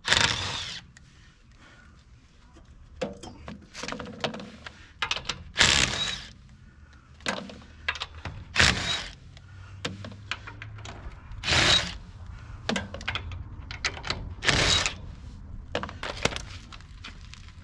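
Metal clanks and clinks from tools and wheel hardware being handled as parts are taken off a truck's wheel, with about five louder clattering knocks spaced roughly three seconds apart among smaller clicks.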